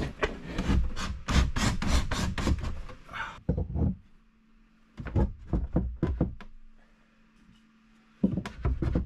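A wooden shelf unit knocking and scraping against the wooden floor and bench frame as it is shoved and levered into place. Dense rapid knocks for about three seconds, then a shorter burst of knocks a little past the middle and more knocks near the end, with quiet in between.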